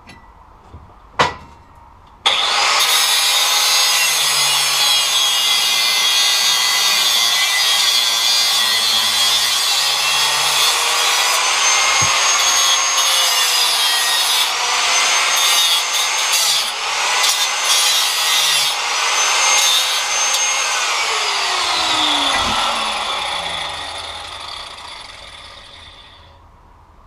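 A sharp click, then an angle grinder with a cut-off wheel starting suddenly and cutting into thick steel pipe, its pitch dipping and recovering as the wheel bites. Near the end it is switched off and its whine falls away as it winds down.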